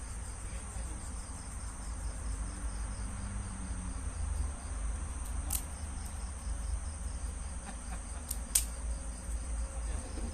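Crickets trilling steadily over a low rumble, with a few sharp clicks in the second half.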